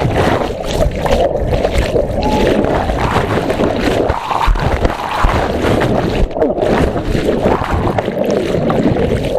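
Motorboat running on the sea, with heavy wind rumble on the microphone.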